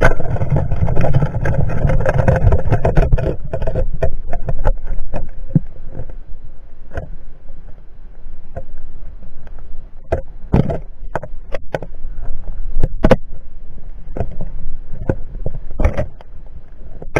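Underwater noise from a diver moving along rocky bottom: a rush of water for about the first four seconds, then scattered sharp clicks and knocks.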